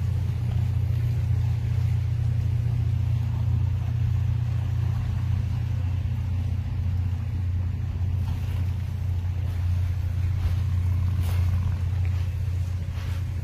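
Wind buffeting a phone's microphone on an open seashore: a steady, loud low rumble, with a few faint gusts or wave washes showing briefly over it.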